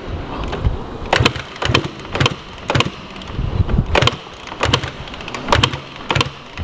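Dirt bike engine being started and not catching: irregular knocks and coughs, roughly two a second, with no steady running. The question about the hot start points to a hard start.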